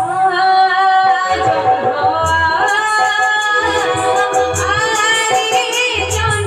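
Odia gitinatya (jatra) music: a voice sings an ornamented, wavering melodic line over a steady held note, with low drum strokes recurring underneath.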